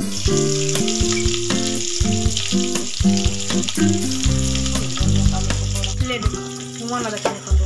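Besan-battered potato patties (aloo chop) deep-frying in hot oil in a kadhai: a steady sizzle, with a perforated metal skimmer turning them. The sizzle cuts off just before the end, and background music runs underneath.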